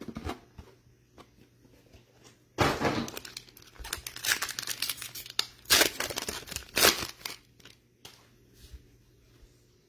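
Plastic wrapper of a trading card pack torn open and crinkled by hand, starting about two and a half seconds in as a series of sharp rustling tears, the loudest near the end.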